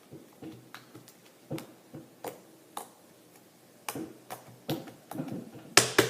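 Slime being squeezed and pressed in the hands, giving off irregular sharp clicks and pops that come quicker near the end.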